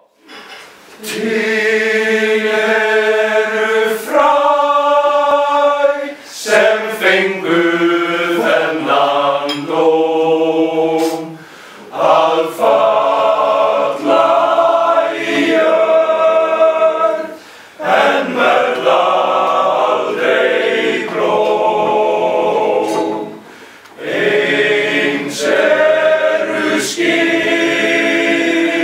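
A male choir singing unaccompanied in full held chords, phrase by phrase, with short breaks between the phrases.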